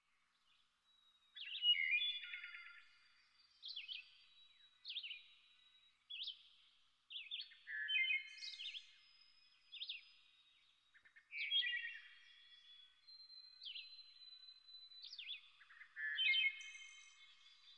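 Small songbirds singing: short chirping phrases and quick trills, one after another every second or two, some overlapping.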